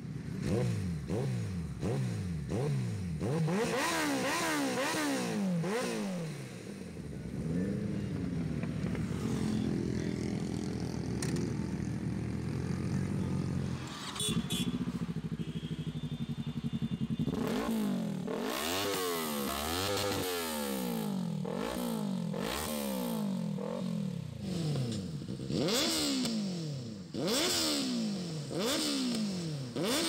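Several sport motorcycles with aftermarket exhausts revved hard while standing, one after another, beginning with a Kawasaki ZX-14's inline-four through a Brock's Performance exhaust. Quick rising and falling rev blips, with a steadier held rev in the middle, then a run of rapid blips again from another bike.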